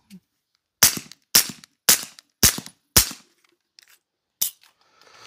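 Beretta M9A4 9mm pistol with a PWS BDE9 suppressor firing subsonic 147-grain rounds: five suppressed shots about half a second apart, then a fainter sharp click near the end.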